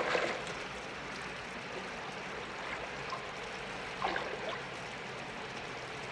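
Steady rush of running water, with a splash right at the start and a smaller one about four seconds in.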